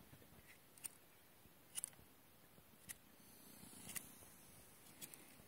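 Near silence, with faint sharp clicks about once a second.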